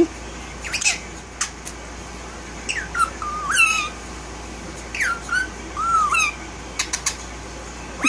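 Blue Indian ringneck parakeet calling. It gives a few short sharp clicks, then two runs of whistled squawks that slide down in pitch, about three and five seconds in.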